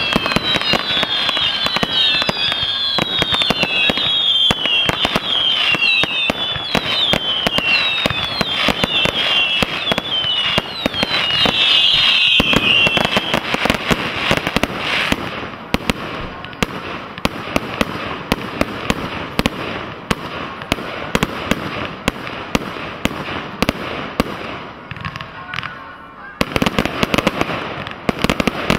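Fireworks going off in quick succession: a dense run of bangs and crackling bursts, with many shrill whistles over the first half. The barrage eases briefly a little before the end, then a fresh burst of rapid bangs starts.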